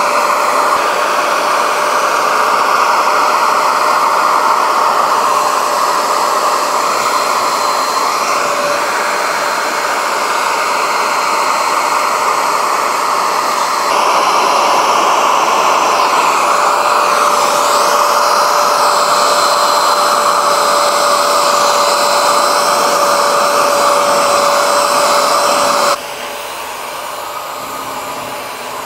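Bissell Spot Clean Pro carpet extractor running, its suction motor giving a steady whine over rushing air as the hand-tool nozzle draws foamy dirty water out of a car floor mat. It gets louder about halfway through and drops suddenly near the end.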